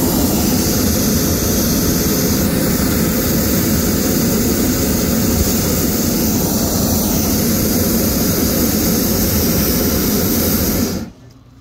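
Hot air balloon's propane burner firing one long, loud, steady blast to heat the envelope before lift-off, cutting off abruptly near the end.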